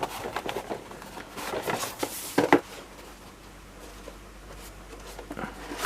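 A screwdriver set's box and packaging being opened and handled by hand: rustling with scattered light clicks, busiest about two seconds in, quieter for a stretch and picking up again near the end.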